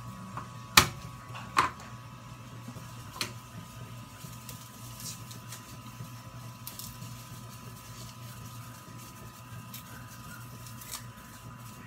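Kitchen knife knocking on a plastic cutting board while garlic is chopped: two sharp knocks about one and one and a half seconds in, a lighter one at about three seconds, then only faint small clicks as the knife trims and peels an onion. A steady low hum runs underneath.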